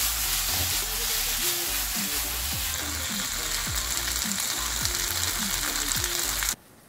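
Sausage and vegetable stir-fry sizzling steadily in a hot frying pan as it is stirred. The sizzle cuts off suddenly near the end.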